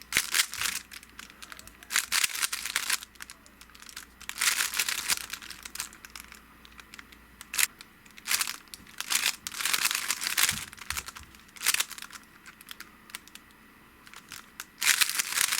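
Rubik's Cube being turned fast by hand: rapid plastic clicking of the layers in short bursts of up to about a second, with brief pauses between, as the solver builds one face.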